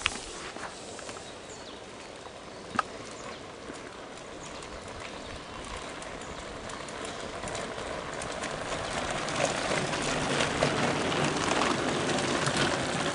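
Mountain bike tyres crunching over a gravel track with scattered small clicks, growing louder as the riders come close and pass. A single sharp click about three seconds in.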